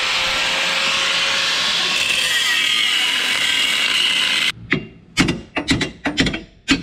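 Angle grinder cutting steel on a buggy frame, a steady grinding hiss that stops abruptly about four and a half seconds in. Then about six sharp metallic knocks as the frame is struck with a hand tool.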